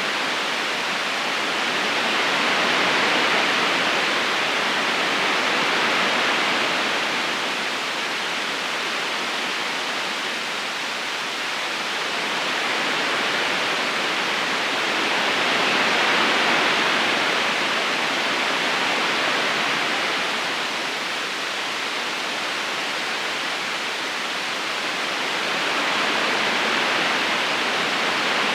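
River current flowing steadily, a continuous rushing hiss of moving water that swells and eases gently every few seconds.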